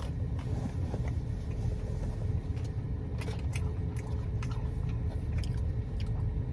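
Steady low rumble with a faint steady hum, and scattered small clicks and ticks throughout.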